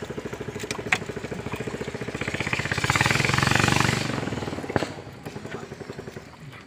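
A small engine running with a fast, even putter, growing louder about three seconds in and then fading away, like an engine passing by. Two sharp knocks, about a second in and near five seconds.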